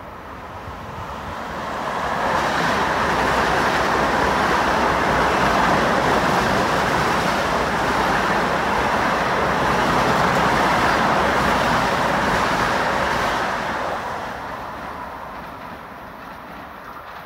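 Long Island Rail Road M7 electric multiple-unit train passing through the station: a steady rumble and rush of steel wheels on the rails. It builds over the first two seconds, stays loud for about twelve seconds, then fades away near the end.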